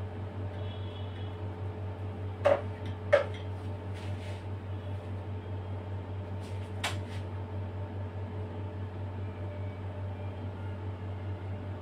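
Steady low hum with two sharp knocks about two and a half and three seconds in and a fainter click near seven seconds: a metal palette knife knocking against a plastic whipped-cream tub while cream is scooped and spread on sponge cake layers.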